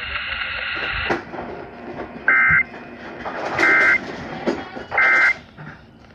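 Emergency Alert System end-of-message data burst sent three times: short bursts of two rapidly alternating high tones, about a second and a half apart, marking the end of the severe thunderstorm warning broadcast on FM radio.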